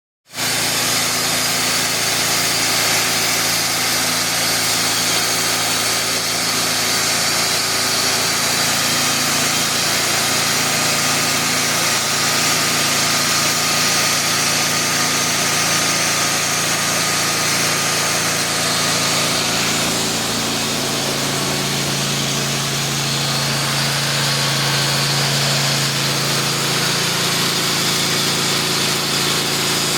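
The engine of a Wood-Mizer portable band sawmill running steadily. Its note shifts about two-thirds of the way through.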